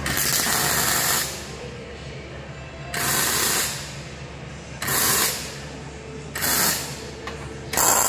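Electric arc welder laying a run of short tack welds on a sheet-steel box: five separate bursts of arc noise, each half a second to a second long, one to two seconds apart, over a steady low hum.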